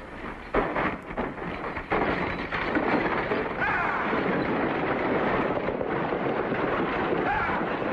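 Horse-drawn stagecoach and galloping horses pulling in with a dense rumble, sharp knocks in the first two seconds and a few brief shouts or calls over it.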